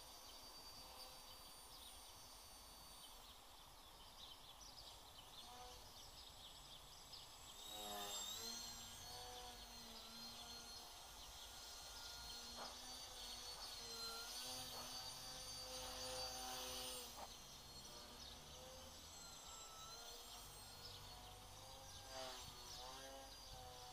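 FPV quadcopter motors whining faintly, their pitch stepping and gliding up and down with the throttle, over a low rumble.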